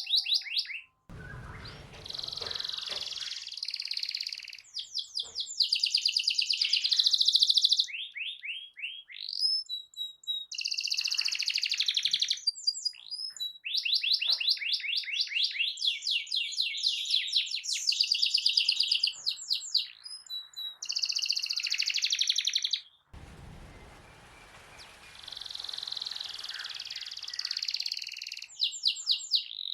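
Domestic canary singing: long, fast trills of rapidly repeated notes, phrase after phrase with short breaks between them.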